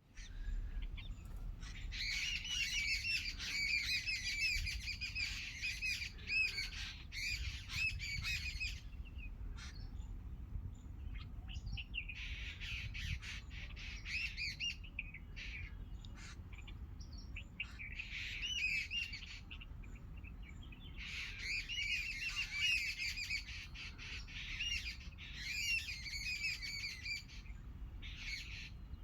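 Birds chirping and squawking in dense bouts a few seconds long, with short lulls between them, over a low steady rumble.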